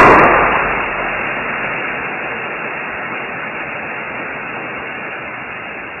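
A sudden burst of static-like hissing noise that starts loud and slowly fades.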